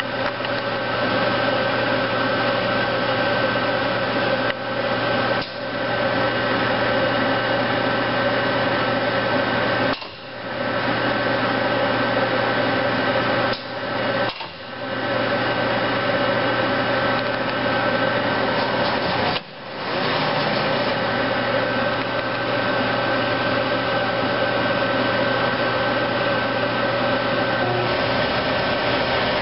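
1984 Acroloc Series 10 vertical machining center running under power: a steady mechanical whir with several fixed tones, which drops out briefly a few times. A low hum underneath stops near the end.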